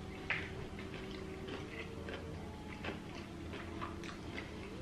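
Crunching and small clicks of someone chewing crispy fried food, scattered irregularly over a steady low hum.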